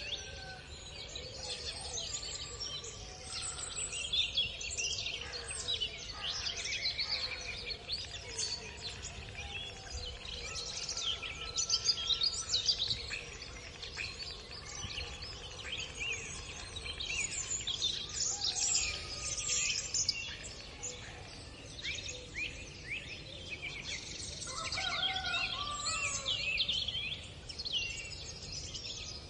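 Many small birds chirping and twittering densely and continuously, over a faint steady outdoor background, with a few fainter, lower held calls mixed in.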